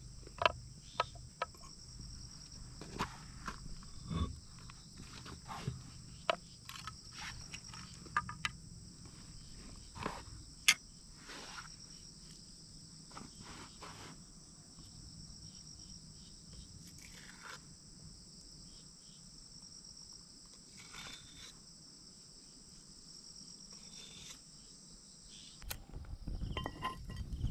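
Crickets chirping steadily in the background, with scattered short clicks and knocks of things being handled and set down on stone and a bamboo tray during the first half. Near the end a campfire crackles in.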